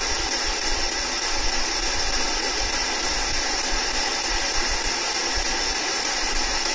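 Steady hiss of static with an uneven low rumble beneath it.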